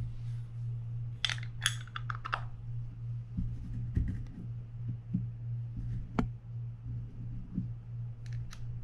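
Small hard clicks and taps as a Penn Spinfisher 750SSM reel's side cover plate is seated onto the gearbox and its small screws are handled: a quick run of clicks early on, a single sharp click in the middle and two more near the end, over a steady low hum.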